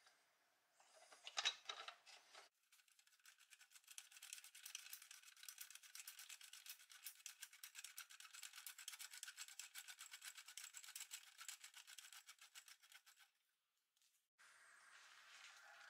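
Restored 1950s Doepke Heiliner toy scraper's hand-worked pump lift mechanism: a short scrape and a sharp click, then a long run of rapid, even metal clicking that stops suddenly near the end. Faint.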